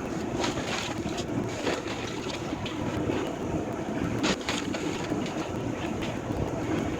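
Heavy demolition machinery running steadily under a scatter of sharp cracks and clatters of breaking debris, the loudest crack about four seconds in.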